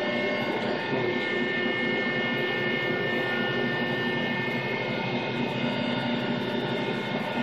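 Hydraulic power unit of a Niagara 350-ton press brake running steadily: a constant hum with a whine of several high steady tones over it.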